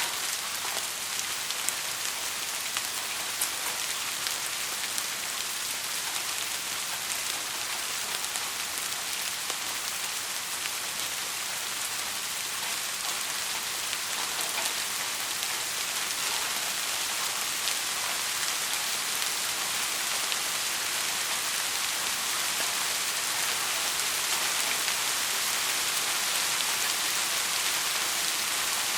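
Heavy rain falling steadily: a dense, even hiss with a few sharper drop ticks in the first few seconds, growing slightly louder toward the end.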